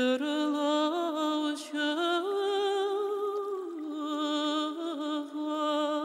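Wordless solo singing: a slow melody of long held notes that step up and down in pitch, with vibrato.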